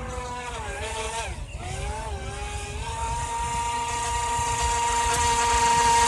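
Feilun FT012 RC speedboat's brushless motor whining at speed. The pitch wavers and dips with the throttle in the first couple of seconds, then holds steady and grows louder as the boat runs closer.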